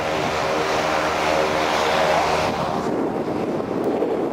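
An engine running with a steady, even pitch, giving way to wind rushing over the microphone about two and a half seconds in.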